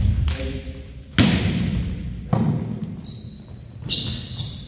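Volleyball being played: sharp slaps of hands and forearms on the ball about a second apart, echoing in a large gym, with sneakers squeaking on the hardwood floor in the second half.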